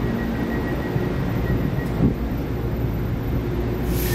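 Taiwan Railways EMU900 electric multiple unit standing at the platform, its onboard equipment giving a steady hum. A thin high tone stops just under two seconds in, a short knock follows at about two seconds, and a burst of air hiss comes near the end.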